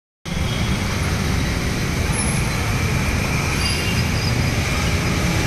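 Steady road traffic moving through floodwater: auto-rickshaw and motorcycle engines running at low speed and tyres splashing through the water, over a continuous low rumble.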